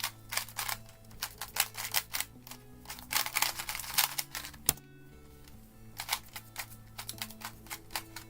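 A magnetic Gan 251 M 2x2 speedcube being turned fast, rapid clacking turns in three bursts with short pauses between, over quiet background music.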